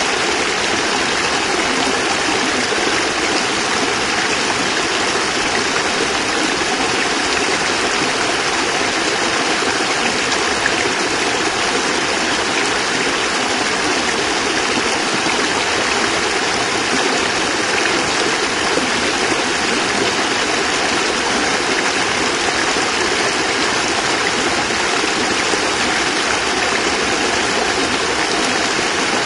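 A small cascade of water splashing and running steadily, with no breaks or changes.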